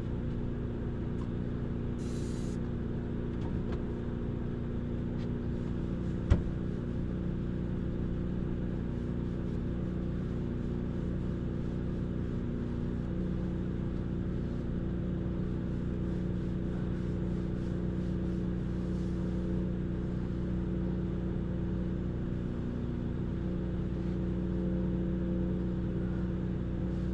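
Vacuum cleaner running steadily with a constant motor hum, with a single sharp knock about six seconds in.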